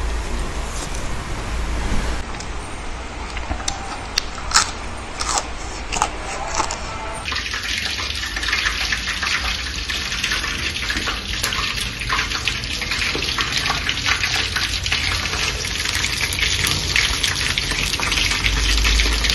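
Battered chicken pieces deep-frying in a wok of hot oil: a dense, steady crackling sizzle that starts about seven seconds in. Before it there are a few sharp clicks.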